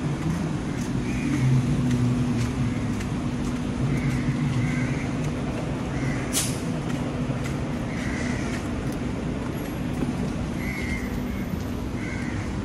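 Street traffic: a vehicle engine runs steadily with a low hum over the road noise, and a short, sharp hiss comes about six seconds in.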